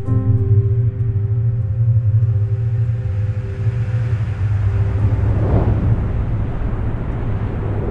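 Cinematic intro soundtrack: a deep, steady rumbling drone under a few held tones, with a whooshing swell building about four seconds in and peaking a little later.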